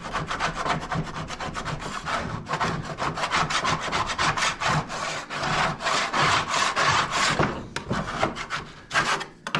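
Quick repeated scraping strokes on the wood of a Gerstner tool chest, working off old felt and hide glue softened with hot water. The strokes ease off briefly near the end.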